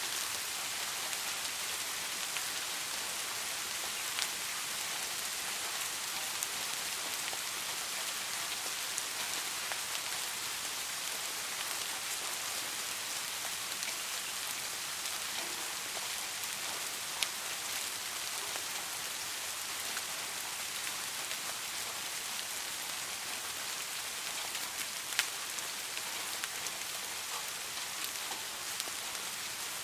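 Steady rain falling, an even hiss with scattered sharper drops ticking now and then, the clearest about four, seventeen and twenty-five seconds in.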